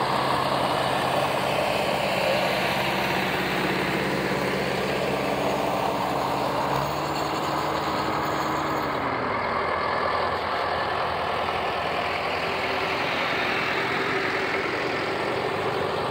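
Vintage farm tractors driving past one after another, their engines running steadily; about eight seconds in, the engine note drops in pitch as one goes by.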